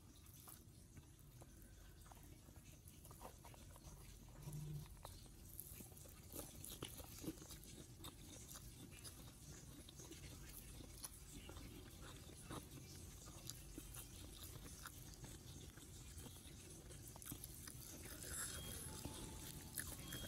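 Faint eating sounds of a person chewing rice and fried tempeh and tofu, with scattered small crunches and mouth clicks.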